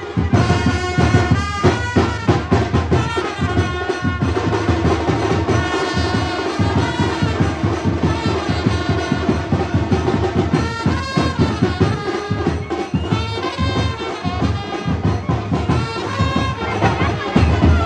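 Brass band music: trumpets playing over a steady drum beat.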